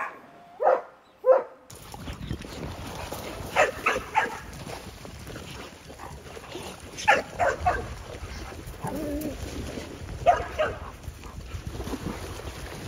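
Dogs barking in short calls every couple of seconds over a steady rush of wind on the microphone and splashing water from dogs swimming and wading.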